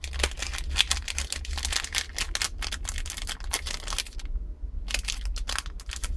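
Plastic packaging crinkling and rustling as it is handled, a rapid run of small clicks with a short pause about four seconds in.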